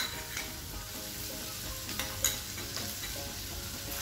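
Finely chopped garlic sizzling in hot oil in a stainless steel pan, with a spoon clinking against the pan a couple of times about two seconds in as it is stirred.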